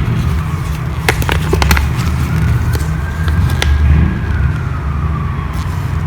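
A siren wailing slowly up and down over a loud, steady low rumble, with scattered sharp clicks and rustles of paper leaflets being handled.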